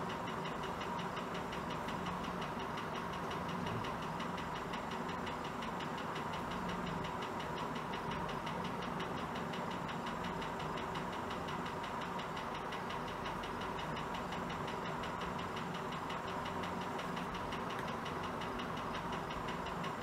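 Lesslie Locke spinner ceiling fan running steadily: a constant motor hum with a rapid, even ticking over it. The noise comes from stiff new-old-stock bearings, which the owner says need work, possibly replacement.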